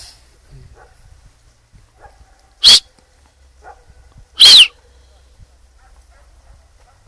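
Two short, loud animal calls about two seconds apart, each a sharp high cry falling in pitch, the second a little longer than the first.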